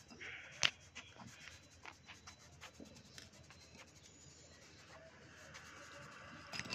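Fingertip rubbing over pencil graphite shading on paper to blend it: a faint, dry rubbing with scattered light ticks. There is one sharp click just under a second in.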